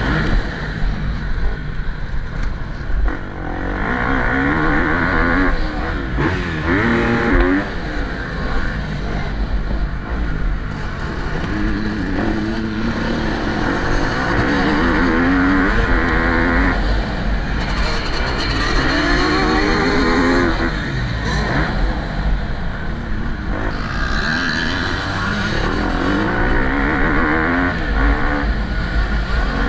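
Motocross bike engine revving hard and rising and falling in pitch again and again as it accelerates and shifts around the track.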